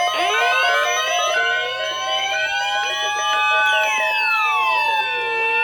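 Several electronic sirens winding up and down at once, their pitches crossing, over steady alert tones and short repeated beeps: a chaotic layered alarm.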